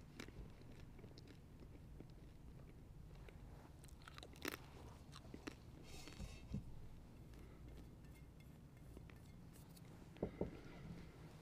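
Near silence with a few faint scattered clicks and taps from a metal chalice and paten being handled on a wooden altar, with a close pair of louder taps near the end.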